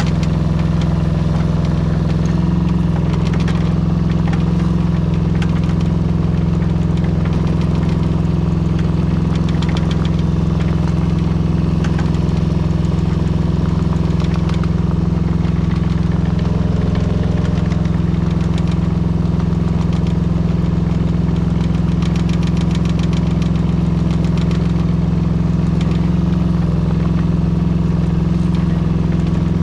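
The 2004 Daewoo Solar 010 mini excavator's small Yanmar engine running at a steady speed while the machine travels on its tracks over snow, with scattered light clicking.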